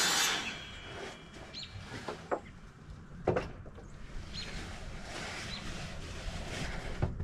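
A saw cutting wood stops just after the start. A few sharp knocks of wood being handled follow, the loudest about three seconds in, with faint short bird chirps.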